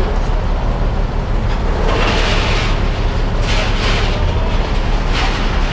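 Heavy diesel tow truck engine running steadily with a low rumble, with several short bursts of hiss over it.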